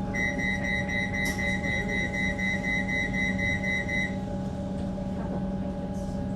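EDI Comeng electric suburban train: a steady electrical hum with several fixed tones, and over it a high steady whistle-like tone that sounds for about four seconds and then stops.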